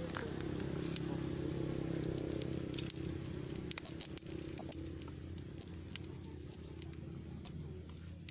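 Pot of boiling water rumbling steadily under a hand-turned screw press that is extruding khanom jeen rice-noodle dough, with scattered light crackles and clicks. The rumble eases after about three seconds.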